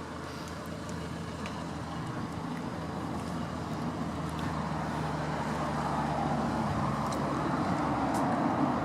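Road traffic noise: a motor vehicle's low hum and tyre noise, growing steadily louder as it approaches.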